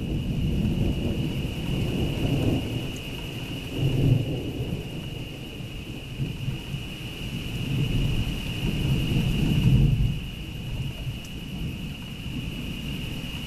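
Rolling thunder rumbling, swelling about four seconds in and again more strongly around eight to ten seconds.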